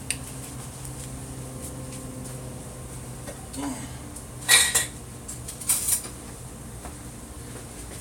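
Dishes and utensils clinking: two short clatters of metal or glass about halfway through, over a low steady hum.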